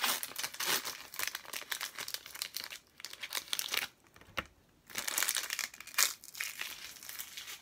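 Foil wrapper of a Pokémon card booster pack being torn open and crinkled in the hands. The crackling comes in spells, with a short lull about three seconds in and a quiet gap at four to five seconds.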